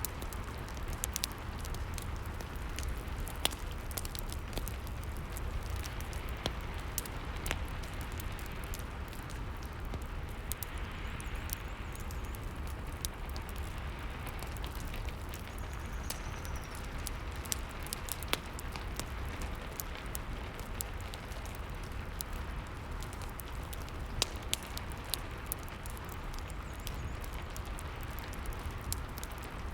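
Rain and fireplace ambience: a steady hiss of rain over a low rumble, with frequent sharp crackles and pops of burning wood scattered through it.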